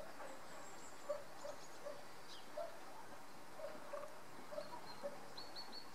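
European goldfinch calls: thin high notes, one falling, and a quick run of three short notes near the end. Under them, soft short low plips about twice a second.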